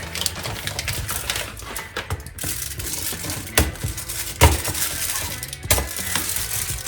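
Knife chopping a dark chocolate bar into small pieces on a cutting board: quick, irregular clicking cuts with a few heavier knocks of the blade.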